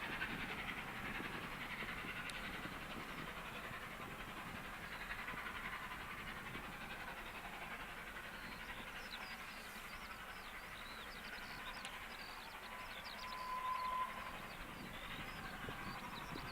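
Steam-hauled train receding: the rush of the passing carriages fades steadily away, and birds chirp from about halfway through. A short steady whistle tone sounds once near the end.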